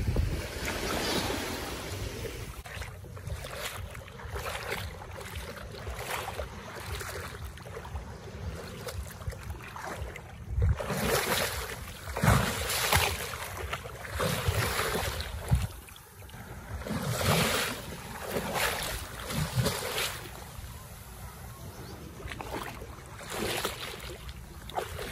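Seawater sloshing and splashing in uneven surges every second or two, with wind noise on the microphone.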